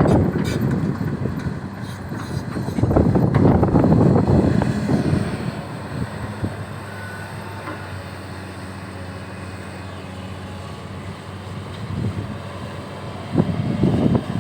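XCMG XE215C excavator's diesel engine running steadily with a low hum, with louder rushing surges about three to five seconds in and again near the end.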